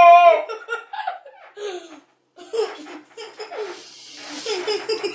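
People laughing: a loud, drawn-out vocal cry breaks off into short bursts of laughter, with a brief pause about two seconds in before the laughter and chatter pick up again.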